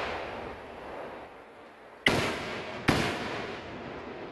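Fireworks display: two sharp bangs about a second apart near the middle, each fading away over about a second, after the fading tail of an earlier burst.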